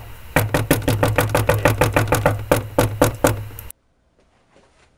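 A fast, even run of knocks on a hard surface, about six a second over a low hum, that stops abruptly about three-quarters of the way in.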